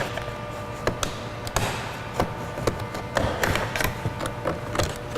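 Scattered plastic clicks and taps, a dozen or so at irregular spacing, as a plastic trim tool pries up a car door's power-window switch panel.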